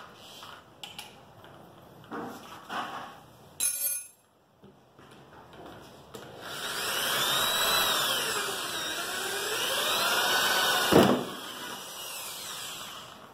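Electric drill with a wood bit running for about five seconds, its motor pitch rising and falling as the speed changes, then stopping with a sharp knock about eleven seconds in. A few light knocks and a short whir come before it.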